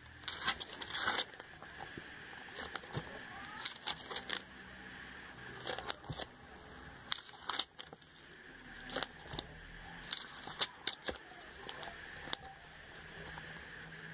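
Glossy catalogue pages being handled and turned, giving irregular crisp paper rustles and snaps.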